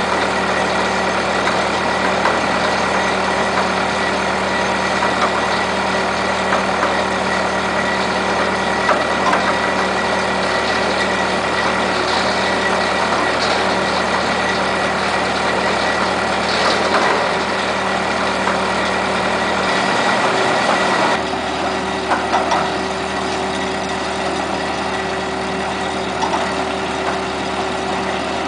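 The engine of a 1997 FHE EarthSaver 515 trommel screen running steadily with a constant mechanical drone. It drops slightly in level about three-quarters of the way through.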